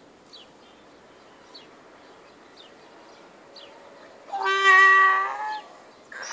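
A donkey starts to bray, with one long, steady, high-pitched call about four seconds in. Before it, faint short bird chirps come roughly once a second.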